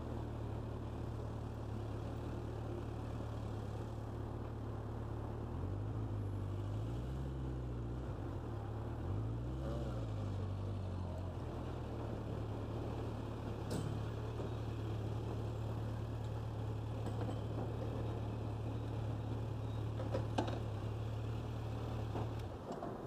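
Motorcycle engine running at low speed, rising and falling in pitch twice with the throttle, then switched off near the end.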